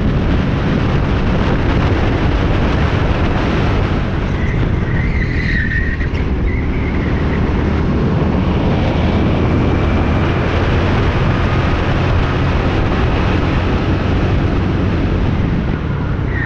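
Kart engine running hard at speed, with the rush of wind, heard from onboard the kart. A brief tyre squeal comes in about five seconds in as the kart corners.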